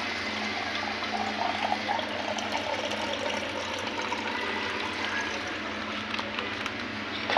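Milk pouring into a stainless steel milk pitcher, over steady background noise.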